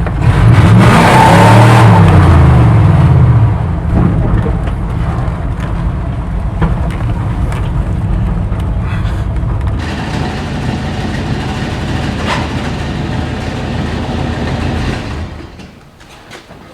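Small-block Chevy 327 V8 of a 1968 Chevy C10 revving hard during a burnout. The revs fall away after about three seconds, and the engine then runs on at a lower, steady level before dying away near the end.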